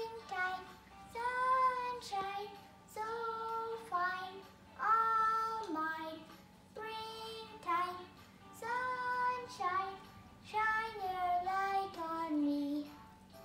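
A young girl singing a children's spring song, in short phrases that each end on a held note, with brief pauses between them.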